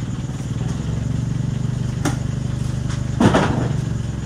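An engine runs steadily while the heavy steel disc harrow is moved on the loading ramps. There is a sharp metallic knock about two seconds in, and a louder clanking scrape a little after three seconds.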